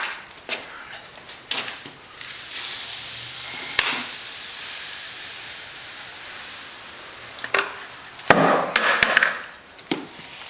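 Crushed malted grain pouring in a steady hiss from a plastic bucket into a cooler mash tun. Near the end the pour stops and a cluster of knocks and clunks follows.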